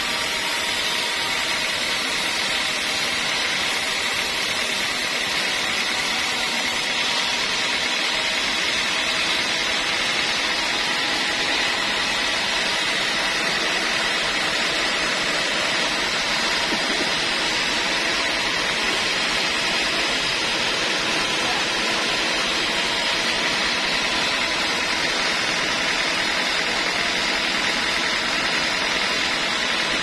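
Large band sawmill running steadily: a constant, even machine noise with a high hum.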